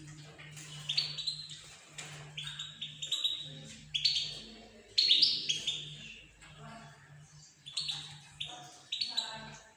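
Many small caged birds chirping, sharp overlapping chirps coming several times a second, loudest about five seconds in, over a low hum.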